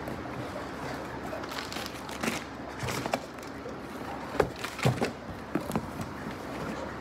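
Cardboard shipping boxes and their plastic wrapping being handled: a scatter of light knocks and rustles over a steady low hiss, with the sharpest knocks about four and five seconds in.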